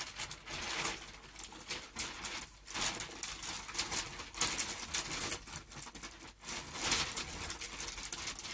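Wrapping paper crinkling and rustling in irregular bursts as it is handled and folded around a bulky present.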